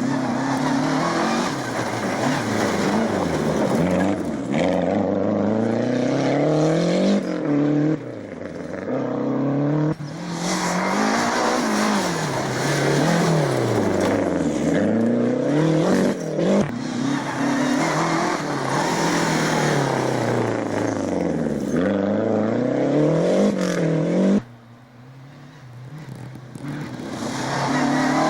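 Rally cars at racing speed on a special stage, engines repeatedly revving up and dropping back through gear changes and lifts. The sound dips a few seconds before the end, then builds again as another car approaches.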